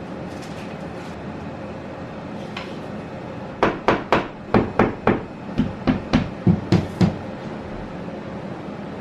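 A hammer striking about a dozen quick blows in a row, roughly four a second, over a steady background hum.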